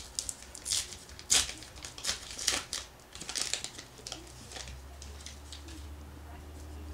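Foil-lined baseball card pack wrapper being torn open and crinkled as the cards are slid out. It gives a series of sharp crackles over the first four seconds or so, then quiets.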